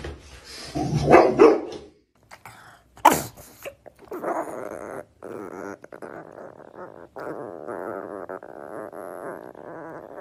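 A dog barking and growling in a few short, loud bursts during the first two seconds. Then a pug vocalises with a wavering, pitched sound on and off from about four seconds to the end.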